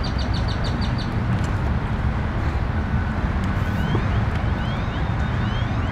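Steady low outdoor rumble of distant traffic and wind on the microphone. A brief run of fast, high ticks sounds near the start, and a few short rising high chirps come past the middle.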